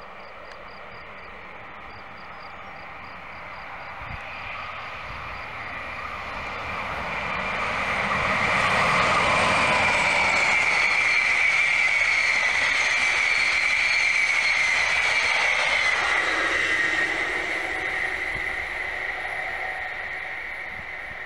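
Passenger train passing at high speed: a rushing roar of wheels on rail builds over several seconds and holds loud with a high hiss. As it passes, about two-thirds of the way in, the sound drops in pitch, then fades away.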